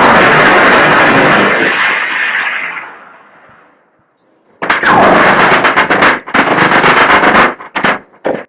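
Battle sounds imitated with the mouth. A loud blast dies away over about three seconds. After a short silence comes a long, rapid burst of imitated machine-gun fire, and a few single shots near the end.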